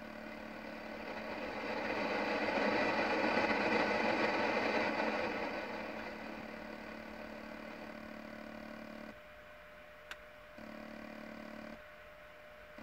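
Joying Android car head unit playing through the car's speakers on a dead FM frequency: radio static with a steady electrical whine, swelling over the first few seconds, then fading. Near the end it cuts out twice, with a single click between. The whine is the unit's interference noise, which the owner puts down to very poor filtering.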